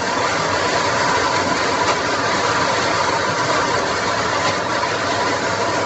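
Tempoyak (fermented durian) mixture frying in a wok on a gas stove while stirred with a wooden spatula: a steady sizzling hiss.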